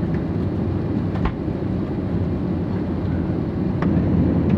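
Steady low rumble and hiss inside the cabin of an Airbus A320neo parked on the stand, with two faint clicks, one about a second in and one near the end.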